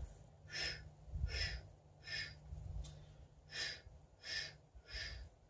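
A man's short breaths out, six in a row about three-quarters of a second apart with a longer pause in the middle. Each exhale is timed with a small pulse deeper into a wide-legged forward-fold stretch.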